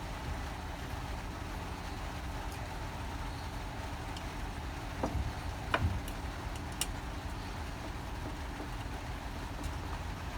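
A steady low mechanical hum, with a few light clicks a little past the middle.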